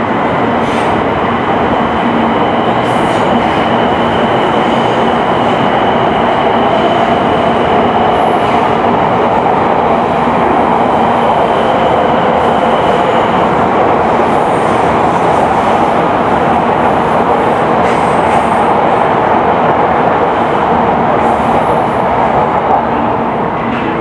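Shinkansen bullet train pulling into a station platform: a loud, steady rush and rumble of the cars sliding past, with a high whine through roughly the first half. The noise eases at the very end as the train comes to a stop.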